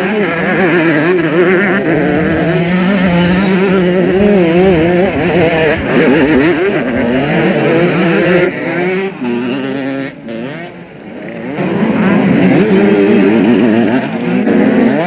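Several motocross motorcycle engines revving hard as the bikes race past, their pitch rising and falling with throttle and gear changes. The noise drops for a moment about ten seconds in, then rises again as more bikes come by.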